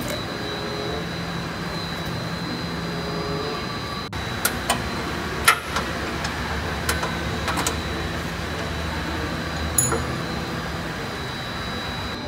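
A steady machine hum, with a faint constant high whine, runs under a scattering of short metallic clicks and taps as hands fit a car horn behind the front bumper bar. The clicks bunch between about four and ten seconds in, the sharpest a little past halfway. The horn itself is not sounded.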